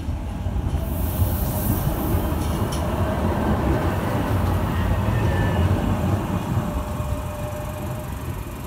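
Munich R2.2 low-floor tram passing close by on street track: a rumble of wheels on rail that swells to its loudest mid-way and then fades as it pulls away. A hiss comes in about a second in, and faint squealing tones from the wheels run under the rumble.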